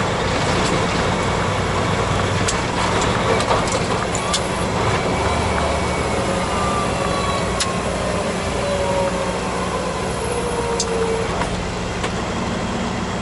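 Semi-truck's diesel engine running and road noise, heard inside the cab while driving. A thin whine slowly falls in pitch over the middle seconds.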